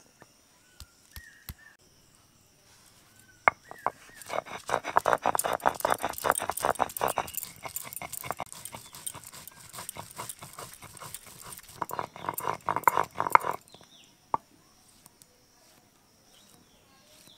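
Stone roller rocked and rubbed over a grooved stone grinding slab (sil-nora), crushing mustard seeds and ginger into a paste: a fast run of gritty scraping and knocking strokes that starts a few seconds in and stops suddenly a few seconds before the end.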